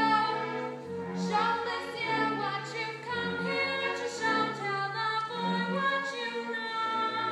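Live musical-theatre number: singing over instrumental accompaniment, the low accompaniment notes changing about once a second.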